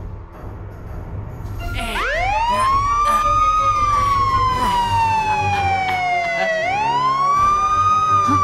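Police siren wailing. It starts about two seconds in with a fast rise in pitch, falls slowly, then rises again near the end and begins falling once more, over a low rumble.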